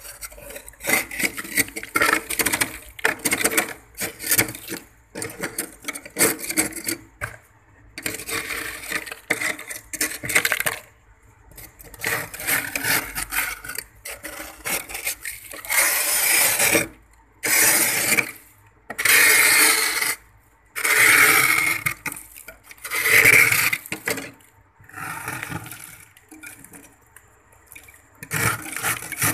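A hand-held blade scraping thick frost and ice off the inside walls of a freezer, in repeated scraping strokes with short pauses between, the strokes longer and louder in the second half.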